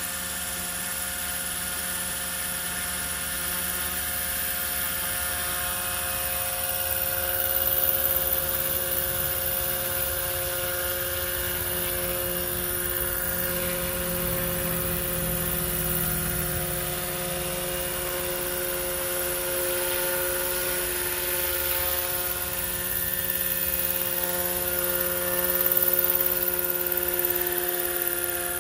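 Roban EC145 800-size scale RC helicopter running at flying speed and lifting off to hover and fly: a steady whine from the electric motor and gears over the swish of the main and tail rotors. It grows louder around 8 seconds in and again near the end.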